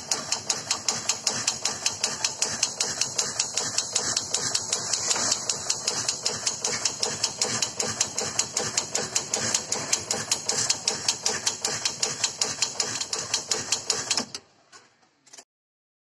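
Oil dispensing pump on a meter test bench running while 5 litres of oil flows through the preset oil meter: fast, even clicking, about five a second, over a steady hiss. It cuts off about fourteen seconds in as the dispense ends.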